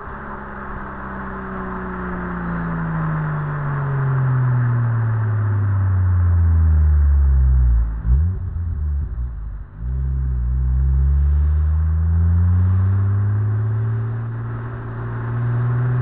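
Stock Toyota Supra's engine and exhaust, the engine note falling steadily for about eight seconds while growing louder, a short rough break with a dip in level, then the note climbing steadily again.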